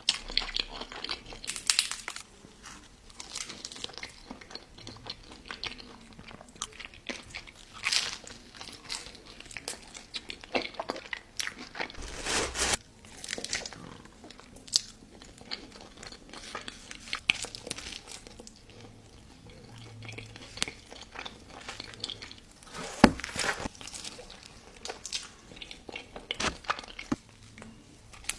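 Close-up eating sounds: a person biting into and chewing crunchy food, with irregular crisp crunches and crackles, some bites louder than others.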